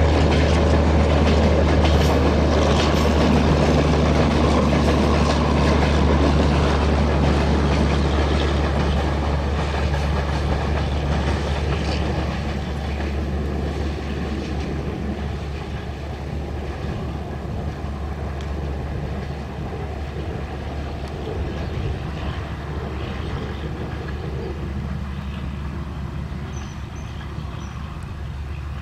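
Diesel-hauled passenger train of LHB coaches rolling past, its wheels clattering on the rails over a steady low drone. The sound is loudest at first and fades gradually as the train moves away.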